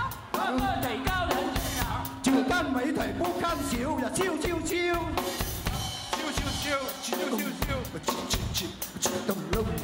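A live band playing a pop song, a drum kit keeping the beat with bass drum, snare and hi-hat, and voices over it.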